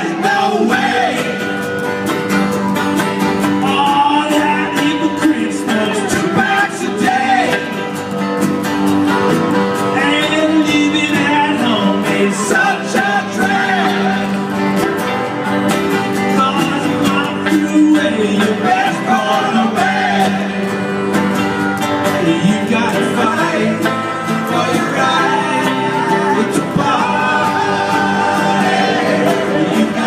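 A band playing a country-style song with guitar, and a voice singing the melody line by line.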